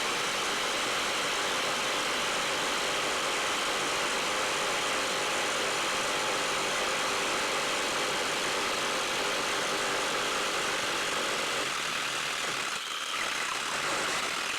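Handheld power drill running steadily under load, boring out a drain hole in a boat hull. It stops abruptly at the end as the bit gets through.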